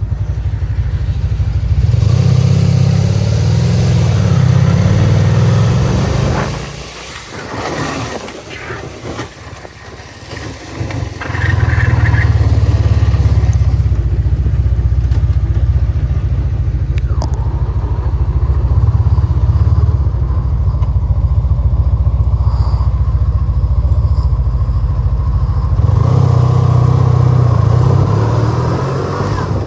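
1988 Honda Supermagna 750's V4 engine running as the motorcycle is ridden, with a quieter, uneven stretch about a third of the way in. A high-pitched screeching, dragging sound comes with it when the throttle is let off at low speed in first and second gear. The cause is not yet known.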